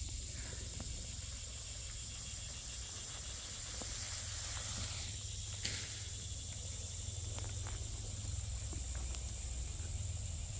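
Steady high-pitched insect chorus, with a low steady rumble underneath and a single sharp click a little past halfway.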